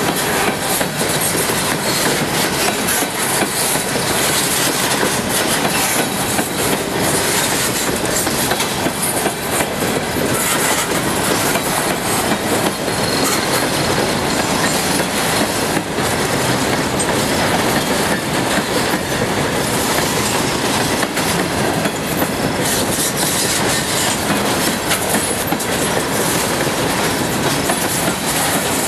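Norfolk Southern freight cars rolling past at close range: a loud, steady noise of steel wheels running on the rails.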